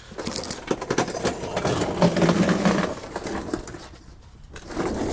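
Plastic clicks, rattling and scraping as an electrical connector is pushed onto a new evap vent solenoid, with a brief low steady tone about two seconds in.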